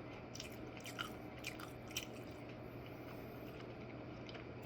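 A person chewing food, with a few faint short mouth clicks about half a second to a second apart, over a low steady hum.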